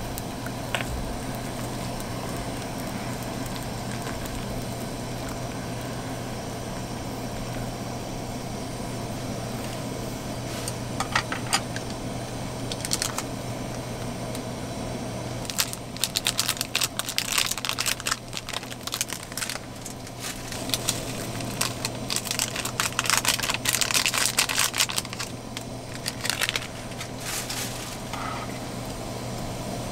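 Noodles boiling in a foil pan on a small camp stove, crackling and sputtering, over a steady low hum. The crackling starts sparse and comes thick and fast in the second half as the broth froths up.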